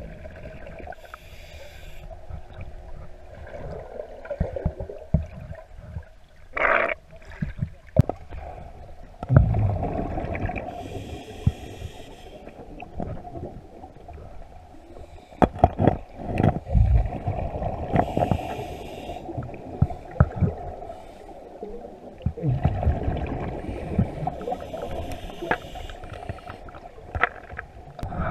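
Scuba diver breathing through a regulator, heard underwater: hissing inhalations alternate with rumbling, gurgling rushes of exhaled bubbles, one breath every six or seven seconds.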